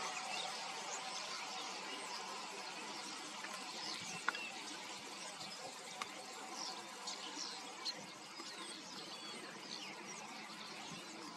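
A large flock of common starlings chattering on the ground: a dense, steady mass of many overlapping short high calls and whistles. A single sharp tick stands out about four seconds in.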